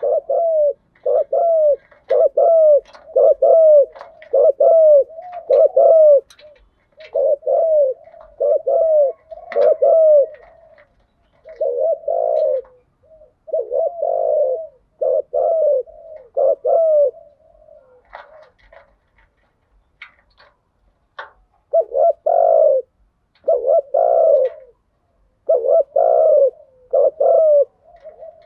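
Spotted doves cooing: runs of short coos, each dipping in pitch, about two a second, breaking off for a few seconds past the middle before starting again.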